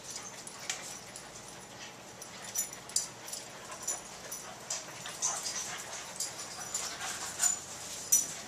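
A young dog whimpering faintly, with scattered light clicks and taps from its claws on the tile floor and from the swinging dog-door flap.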